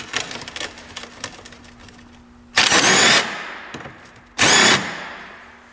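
Cordless impact wrench hammering on a rusty, seized radiator mounting bolt in two short bursts, one about two and a half seconds in and one about four and a half seconds in, each lasting about half a second.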